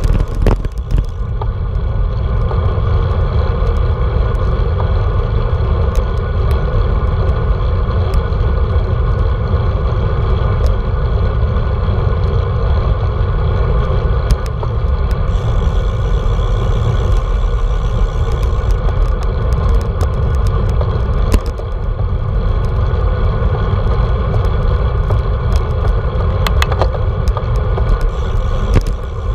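Wind rushing over a handlebar-mounted GoPro and road bike tyres rolling on asphalt, a loud steady rumble with scattered small clicks and rattles.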